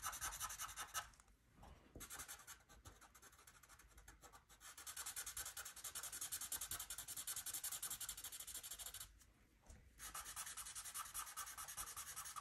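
Sharpie permanent marker scribbling rapidly back and forth on paper, filling in a solid black area. It makes a fast, scratchy rasp in stretches, with short pauses about a second in and about nine seconds in.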